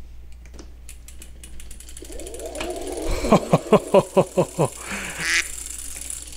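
Brompton NANO conversion kit's front hub motor spinning up under pedal assist as the crank is turned by hand: faint clicking from the drivetrain, then a rising motor whine that breaks into about seven pulsing surges, each falling in pitch, at roughly three a second.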